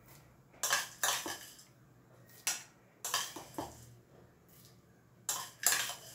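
Metal spoon scraping and clinking against a ceramic bowl and the rim of a plastic food-chopper jar as fried shallots are scooped in: about seven short clinks and scrapes, several in quick pairs.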